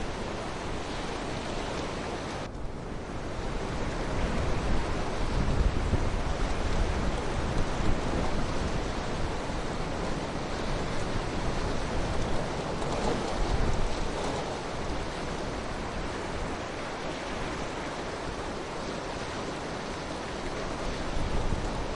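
River water rushing steadily, an even noise with a deep rumble underneath, somewhat louder for several seconds in the middle.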